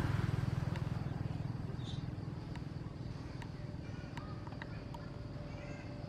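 A low engine rumble from a motor vehicle fades away. A few faint high chirps come near the end.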